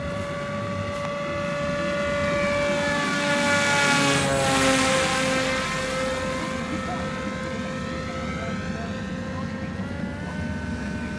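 VEGA FPV flying-wing RC plane's motor and propeller whining as it flies past: the steady whine swells, then drops in pitch as the plane passes about four to five seconds in, and rises slightly in pitch again about ten seconds in.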